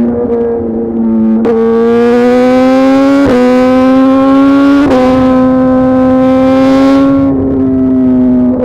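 Suzuki GSX-R 1000 R's inline-four engine through a full titanium SC-Project exhaust, running hard with its note climbing slowly. The note is broken by three sharp cracks about a second and a half, three seconds and five seconds in, and eases a little near the end.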